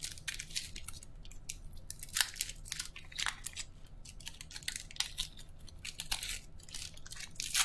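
Foil wrapper of a trading-card pack being crinkled and torn open by hand: a run of sharp crackling rustles, several a second.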